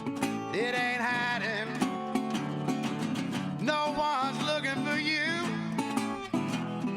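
Live country song: a fingerpicked National steel resonator guitar, with a man's voice holding two long, wavering sung notes between lines of the lyric.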